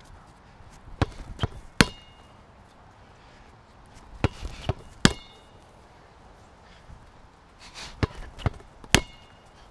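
A basketball bouncing hard on a modular sport-tile court in three quick sets of about three dribbles each. The last bounce of each set is the loudest and rings briefly.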